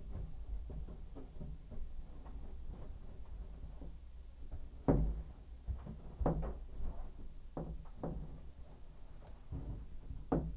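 Irregular knocks and bumps from hands handling the copper shower-valve piping through an access hole in a tub/shower surround, the loudest about five seconds in.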